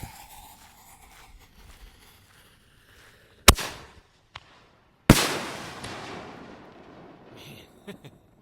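Consumer canister firework shell fired from a mortar tube. A sharp launch bang comes about three and a half seconds in, then about a second and a half later the shell bursts with a loud bang that fades away over about two seconds.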